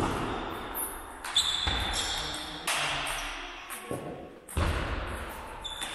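Table tennis rally: the celluloid ball clicking off the bats and the table, each hit echoing in a large sports hall.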